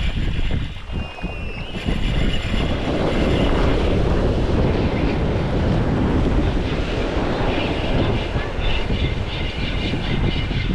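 Wind buffeting the microphone over the rush of surf breaking on the shore. The noise swells louder about two seconds in and then holds steady.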